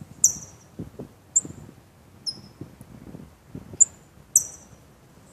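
Small songbird chirping: five short, very high chirps spread over a few seconds, each a quick falling note.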